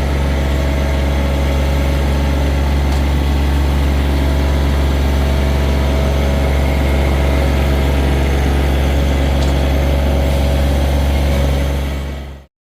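A John Deere 1023E compact tractor's three-cylinder diesel engine idling steadily with an even low drone, cutting off suddenly near the end.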